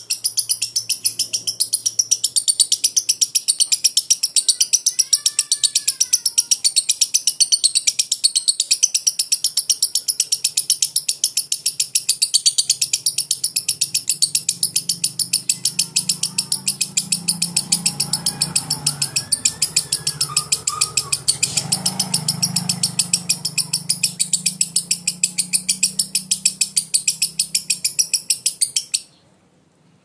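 Fischer's lovebird singing its long 'ngekek' song: a high, rapid chattering trill of about seven notes a second, kept up without a break and cutting off suddenly near the end. An unbroken ngekek this long is what Indonesian bird keepers call 'konslet'.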